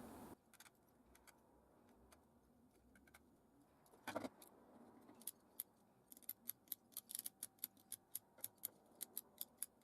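Faint, sharp little clicks, a few a second from about five seconds in, after a soft knock a little after four seconds: small clicks from handling the partly reassembled multimeter, otherwise near silence.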